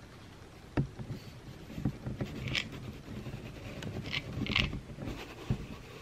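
Handling noise of a small kaleidoscope held against a camera lens and turned: irregular rubbing scrapes and small knocks. The sharpest knock is about a second in, and louder scrapes come twice later on.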